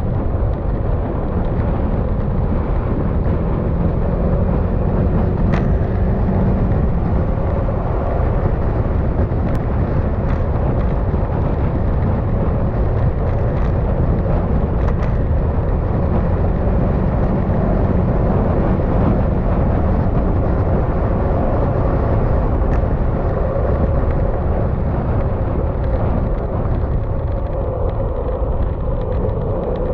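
Yamaha XMAX scooter's single-cylinder engine running at steady road speed, under a dense rush of wind and road noise, its pitch drifting a little as the throttle eases and opens through the bends.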